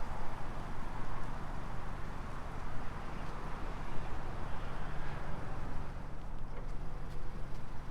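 Steady low rumble with outdoor background noise, with a few faint clicks.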